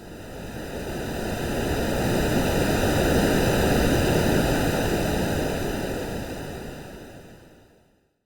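A single wash of rushing wave noise, swelling up over about three seconds and fading away to nothing just before the end, like one slow ocean wave rolling in and drawing back: AI-generated surf sound for sleep.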